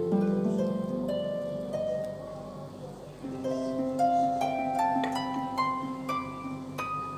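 Background music of light instrumental notes, each sharply struck and fading, climbing step by step in a rising run in the second half.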